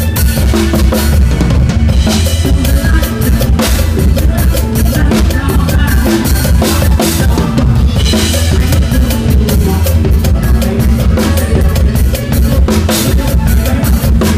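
Drum kit played live with a band in mor lam sing style: a steady, dense beat of kick drum, snare and cymbals over the band's bass and other instruments.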